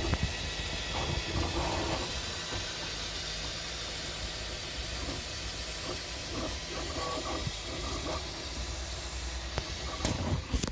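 3D printer running: a steady fan hiss and hum, with short mid-pitched stepper-motor tones that come and go as the print head moves.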